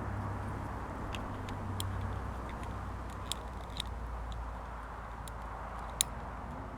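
Scattered light clicks and taps of hands handling plastic and metal detector parts while the battery mounting on the shaft is adjusted, a sharper click about six seconds in, over a steady low hum.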